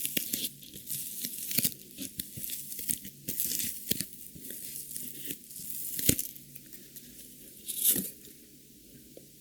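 Packaging being torn and crinkled close to the microphone: irregular crackling and short ripping sounds, with louder rips about a second and a half in, around six seconds and near eight seconds, then dying away.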